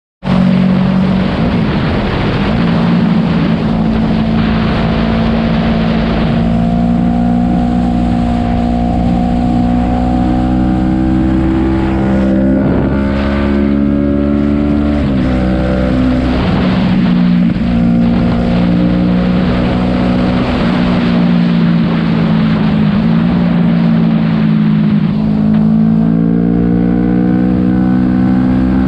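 Motorcycle engine running at highway speed, its note rising and falling a few times with throttle changes, under heavy wind rush on the microphone.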